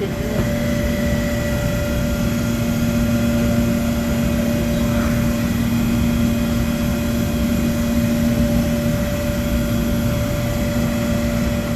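Steady hum of large machinery idling: a low rumble under several held, unwavering tones.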